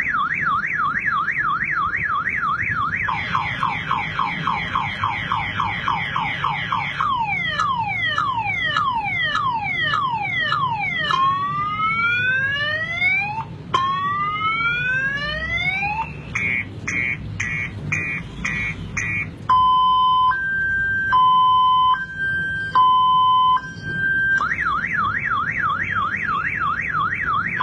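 Car alarm siren cycling through its tones. It starts with a fast warble, then a slower warble, a run of falling whoops, a few longer rising whoops, rapid beeps and a two-tone high-low alternation, and about three-quarters of the way in it returns to the fast warble.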